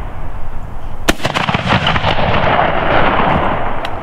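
A shotgun shot at a flying pheasant about a second in, its report trailing off for about two seconds. A fainter crack follows near the end.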